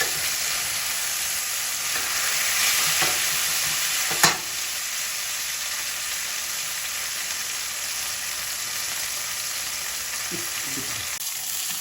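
Flour-dredged chicken breasts frying in olive oil and butter, a steady sizzle, with one sharp click about four seconds in.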